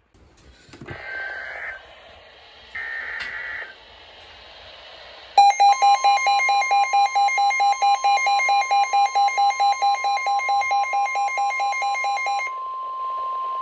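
NOAA Weather Radio alert opening with two short buzzy bursts of SAME header data, then a weather radio receiver's alarm beeping rapidly, about five times a second, over the steady 1050 Hz warning alarm tone. The beeping stops near the end and the steady tone carries on alone. The sequence signals a new warning broadcast, here a special marine warning.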